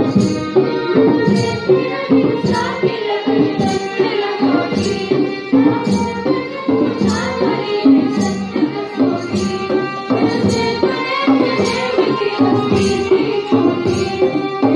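Live music: a melody over a steady drum beat of about four strokes every three seconds.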